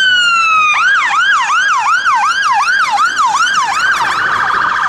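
Fire engine sirens on an emergency run: a slow wail gliding down, switching about a second in to a fast yelp of about three sweeps a second, with a quicker warble joining near the end.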